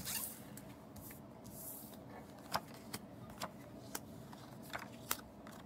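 Paper playing cards being slid and set down on a hard tabletop: a brief swish at the start, then about six light, sharp taps spread through the second half.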